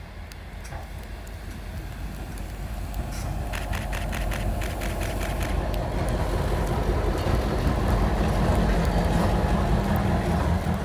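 Diesel locomotive engine rumbling and growing louder as it approaches, pushing a wedge snowplow through deep snow. A quick run of clicks comes about four to five seconds in.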